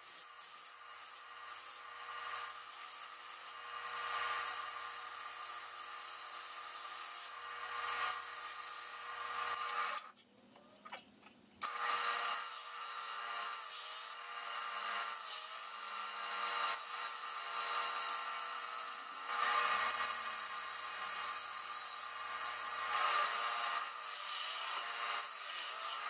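Wood lathe running while a hand-held turning tool cuts a spinning wooden disc: a steady hiss of the cut over the lathe's hum. The sound drops away briefly about ten seconds in, then resumes.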